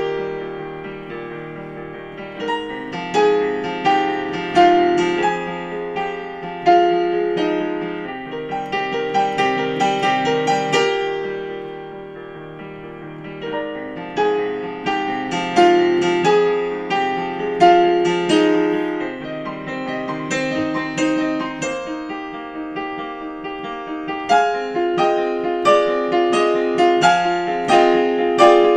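Solo digital piano playing a contemporary classical piece: chords and a melody in phrases that swell louder and then fall back quieter several times.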